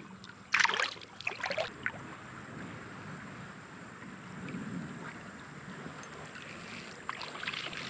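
Creek water running and sloshing around the wading angler, with a short loud splash about half a second in and a few light clicks near the end.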